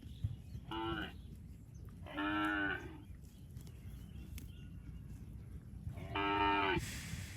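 Cattle mooing: three calls, a short one about a second in, a longer one about two seconds in, and another about six seconds in. A hiss comes in near the end.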